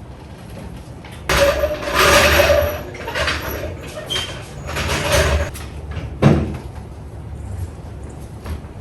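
Harsh scraping and rattling noises lasting a few seconds, then one sharp clank about six seconds in.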